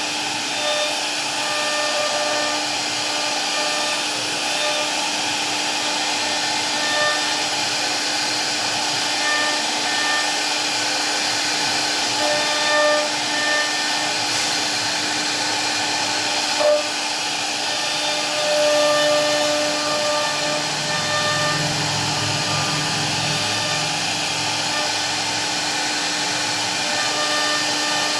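CNC router cutting wood: a steady whirring hiss with a constant hum, and a higher whine that comes and goes as the cut changes. A sharp click sounds about seventeen seconds in, and a low rumble joins for several seconds after it.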